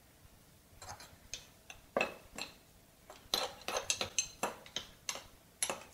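Metal spoon clinking against a glass jar while spooning tiny fish in and pressing them down, an irregular run of sharp clinks that starts about a second in and comes faster in the second half.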